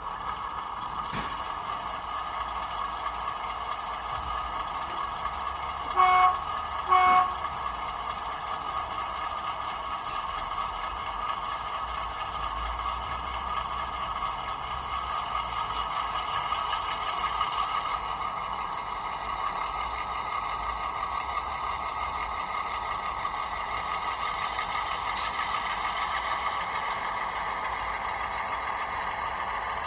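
Class 28 diesel locomotive sound played by a DCC sound decoder through a small speaker in a Heljan model: the Crossley two-stroke engine running steadily, with two short horn toots about six and seven seconds in.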